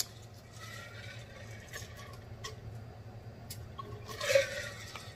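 A person drinking from a cup close to the microphone: quiet swallowing and small mouth clicks, with a louder swallow about four seconds in.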